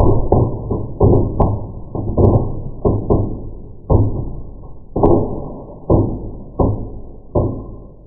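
Small firework going off with a string of sharp pops, each dying away. They come thick at first, then space out, and fade out near the end.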